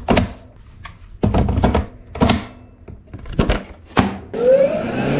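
A run of knocks and thunks, then about four seconds in a small petrol engine, most likely a lawn mower's, starts up. It rises in pitch and settles into a steady drone.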